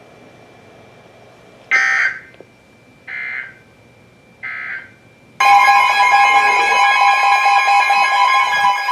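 NOAA Weather Radio SAME alert header: three short bursts of digital data about a second and a half apart, then a loud, steady alert tone that starts about five and a half seconds in. Together they signal that a new warning is about to be read.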